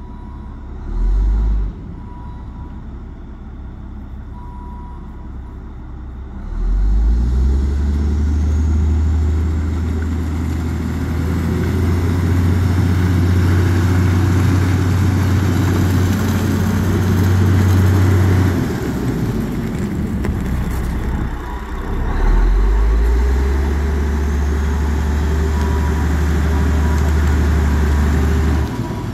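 Cat 980G wheel loader's diesel engine running as the machine drives closer. It rises to a loud, deep rumble a few seconds in, eases off briefly past the middle, then revs up strongly again before dropping away near the end.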